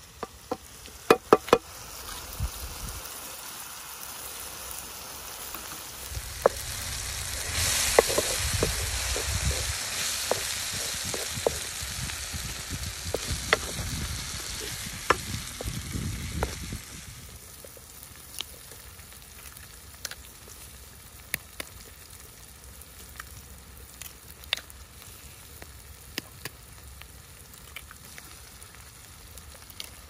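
Chopped tomatoes and green peppers sizzling in a frying pan over a wood fire while being stirred with a wooden spoon. The sizzle swells for about ten seconds in the middle, with many sharp clicks and taps, then settles to a fainter hiss with scattered clicks.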